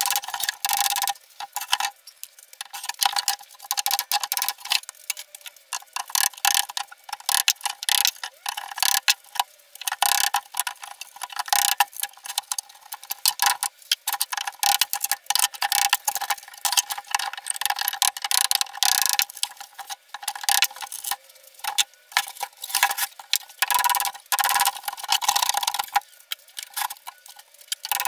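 Rubber mallet striking a wooden pallet to knock its slats loose: many quick, irregular knocks one after another.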